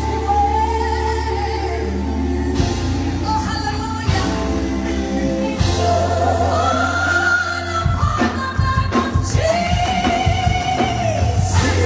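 Live gospel music: a woman's lead vocal with backing singers over a band of keyboard, bass and drums, the voice holding long, wavering notes over a steady bass line.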